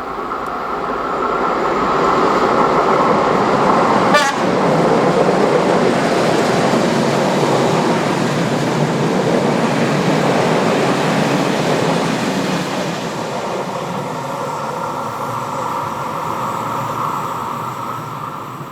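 Passenger train hauled by a Skoda class 44 electric locomotive passing close by, a steady rolling rumble and rail noise that builds, holds and eases off near the end. A brief sharp crack about four seconds in.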